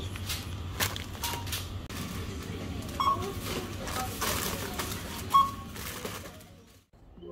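Supermarket checkout sounds: plastic snack bags rustling and knocking in a shopping basket, with a few short electronic beeps and faint voices in the background. It fades out near the end.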